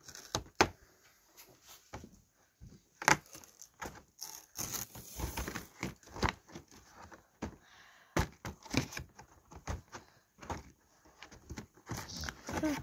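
Thin cardboard tearing as the numbered doors of a chocolate box are pried open, with a paper chocolate wrapper crinkling and irregular sharp snaps and clicks throughout.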